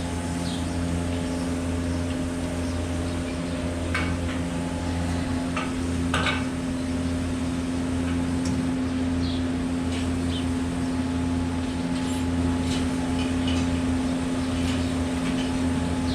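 Steady mechanical hum of dairy barn machinery, with a few brief clicks about four and six seconds in.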